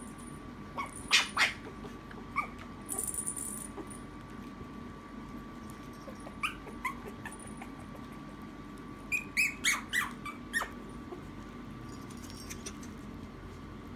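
Maltese puppies squealing and yipping in short, high squeaks while play-wrestling. There is a pair early on, a few scattered ones, then a quick run of about six squeaks around the tenth second.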